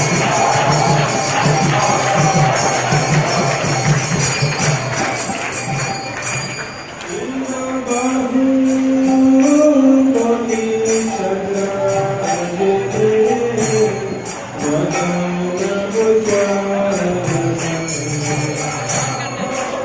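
Devotional kirtan music: small hand cymbals (kartals) clash in a steady rhythm over a drum beat, and from about seven seconds in a voice sings a melodic chant line over them.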